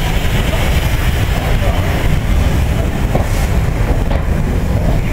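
Royal Mail Travelling Post Office carriages rolling past at close range: a loud, steady rumble of wheels on the rails.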